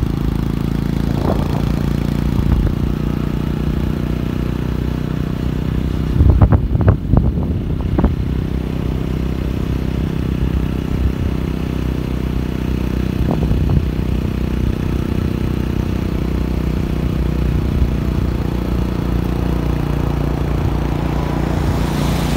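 Motorcycle engine running steadily while riding, with a brief clatter of knocks and rattles about six seconds in, the loudest part, and a few lighter knocks elsewhere.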